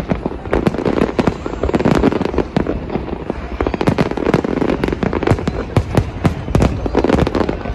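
Fireworks display: a continuous barrage of overlapping bangs from shells bursting, many each second, over a steady rumble.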